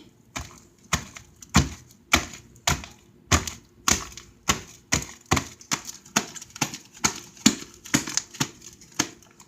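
Sticky homemade slime being squeezed and worked in the hands, making sharp popping clicks about twice a second.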